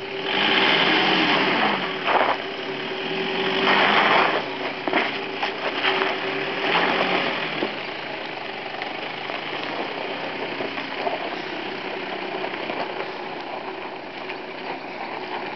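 Nissan Hardbody pickup's engine revving in three bursts as the truck tries to climb a loose dirt slope and is stuck without traction, then settling to a steady idle for the second half.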